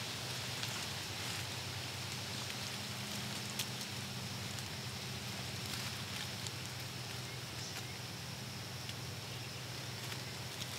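Quiet woodland ambience: a steady low hum under a steady high hiss, with scattered faint ticks and one sharper click a few seconds in.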